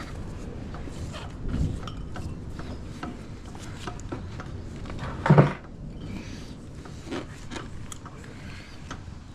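Scattered clicks and clinks of metal tools against a bicycle wheel rim as a tire is levered onto it, with one louder knock about five seconds in.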